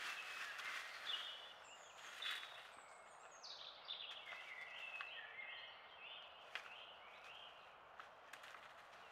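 Faint woodland birdsong: several songbirds sing short phrases over a steady hiss, one a descending run of notes about three to four seconds in. A few faint sharp clicks are scattered through.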